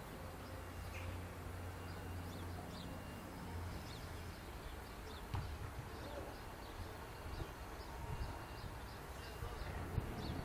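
A low droning hum, steady for the first three or four seconds and then uneven, under scattered short bird chirps.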